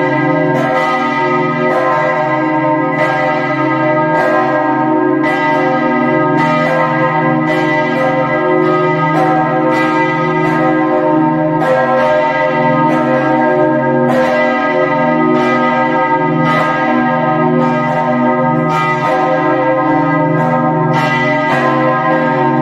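Several large church bells swinging and ringing together, heard from inside the belfry. Their clapper strikes come unevenly, about one a second, over a continuous ringing hum of overlapping bell tones.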